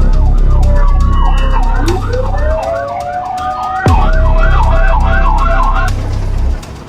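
Emergency vehicle sirens responding to a fire: one siren in a fast warbling yelp and a second winding up slowly in pitch about two seconds in, over a loud low rumble. The yelp stops near the end.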